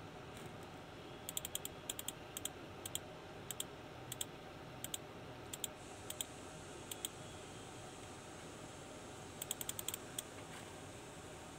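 Clicking at a computer while paging through a PDF document: sharp clicks in short, irregular runs with gaps between, including a quick run of about six clicks near the end.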